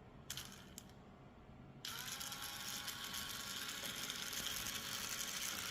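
A small 6 V DC gear motor from a kids' ride-on toy switches on about two seconds in, spinning up quickly and then running steadily with a whirring gear whine. Two short clicks come just before it.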